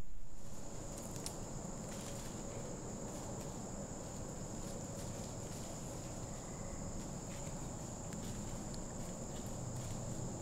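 Steady high-pitched insect chorus in woodland, with faint scattered clicks and rustles that fit footsteps in dry leaf litter.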